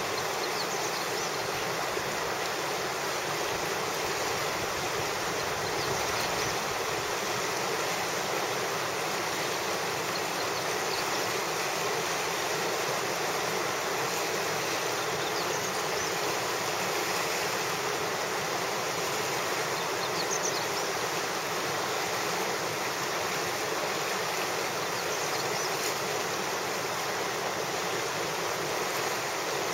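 River rapids rushing steadily: a continuous wash of whitewater around a kayak riding standing waves.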